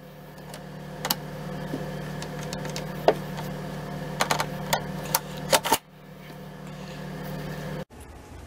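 Mauser K98k rifle parts being handled and fitted during reassembly: scattered sharp metallic clicks and knocks, several in quick succession a little past the middle, over a steady low hum.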